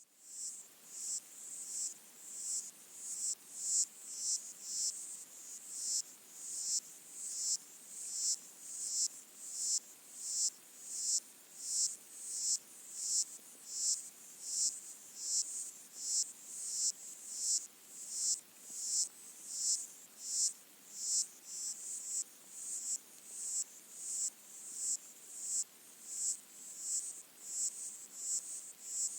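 Underwater chorus of high-pitched pulses repeating about one and a half times a second, each swelling and then dropping away, heard through a hydrophone in a freshwater pond. The recordist presumes it to be lesser water boatmen (Micronecta) stridulating.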